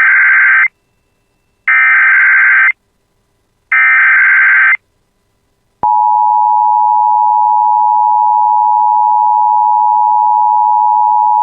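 Emergency Alert System broadcast opening: three one-second bursts of buzzing SAME header data tones, evenly spaced. About six seconds in, the steady EAS attention tone of two close pitches starts and holds.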